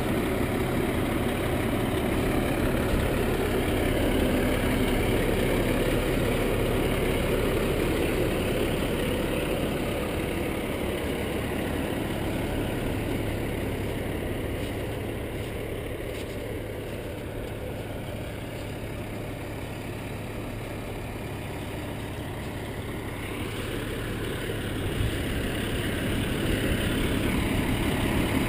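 Heavy plow truck's engine idling steadily, a little fainter in the middle and louder again near the end.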